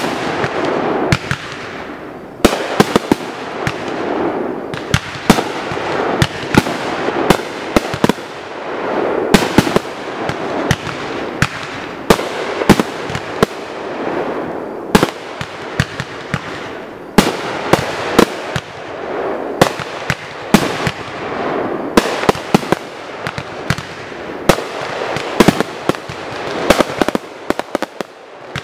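Strobe fireworks cakes firing: a rapid, irregular string of sharp cracks and bursting reports over a steady crackling hiss that swells and fades in waves. The reports come thicker near the end as the finale begins.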